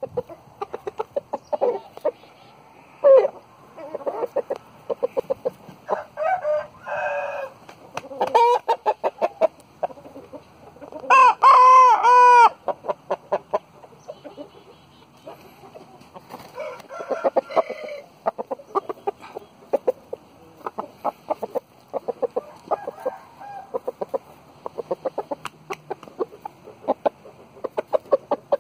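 Young roosters clucking in quick runs of short clucks, with crowing among them: one loud, long crow about eleven seconds in, and shorter calls around six to eight seconds and again near the end.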